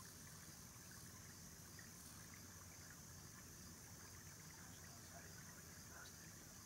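Near silence: a faint, steady background hiss with a few tiny ticks.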